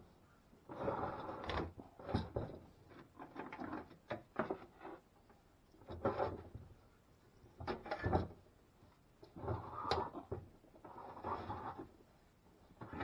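Metal bandsaw body and loose parts being handled and shifted on a workbench: repeated short scrapes and knocks, roughly one every second or so.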